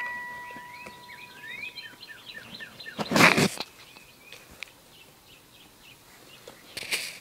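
A run of quick, high, rising chirps while a ringing tone fades out over the first second or two. About three seconds in, and again near the end, there are loud rustling bursts as the recording device is handled against the mic.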